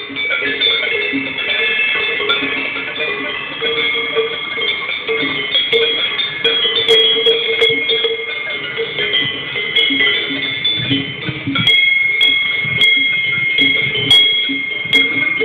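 Several cowbells of different pitches clanking irregularly and continuously as grazing cattle move, the ringing tones overlapping.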